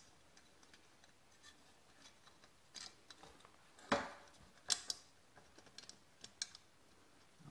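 Scattered small metal clicks and taps as a bolt and nut are fitted through the clamp of a mini bike's exhaust pipe, with a louder clunk about four seconds in.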